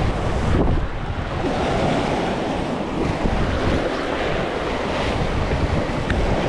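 Waves washing and breaking over the jetty rocks, with wind buffeting the microphone in a steady low rumble.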